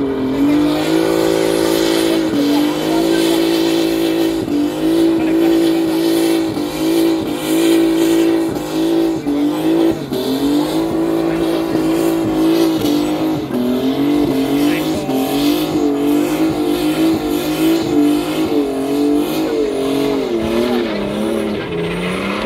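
Car spinning donuts with its rear tyres smoking: the engine is held at high revs in steady stretches, dipping and climbing again, with the hiss of spinning tyres underneath. In the second half the revs waver up and down more quickly.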